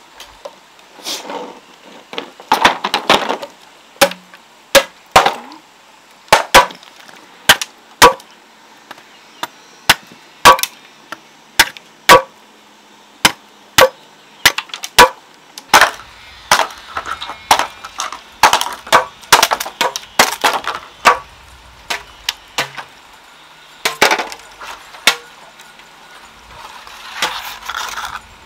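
Irregular series of sharp knocks and chopping strikes, some single and spaced a second or so apart, others in quick clusters, a few with a brief ringing after the hit.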